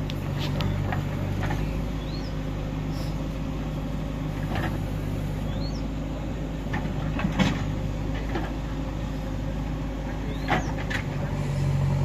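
JCB backhoe loader's diesel engine running steadily while the backhoe digs in soil, with scattered knocks from the bucket and stones; two sharper knocks come about seven and ten seconds in.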